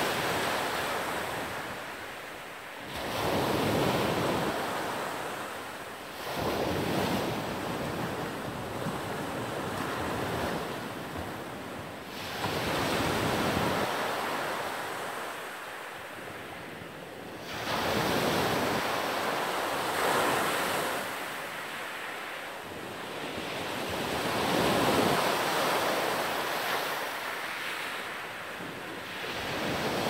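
Sea waves breaking on a pebble beach, surging up the shingle and drawing back in slow swells every few seconds.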